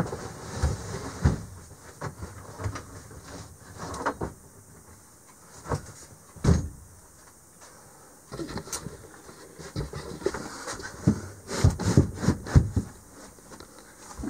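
Knocks, clunks and rattles of a motorhome's fold-up bed being raised and moved. They come scattered at first and get much busier in the last several seconds.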